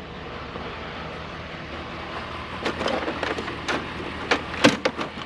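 Vehicle engine idling with a steady low hum, then from about halfway through a series of sharp clicks and knocks, about a dozen, some louder than others.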